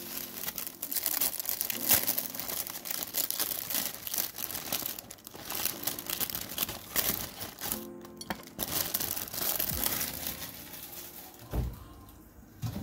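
Steady, irregular crinkling and crackling noise over quiet background music.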